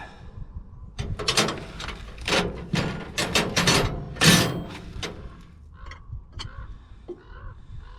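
Metal wrenches clinking and clanking as they are sorted through and tried on a hydraulic hose fitting, busiest about a second to four seconds in, then lighter scattered clicks.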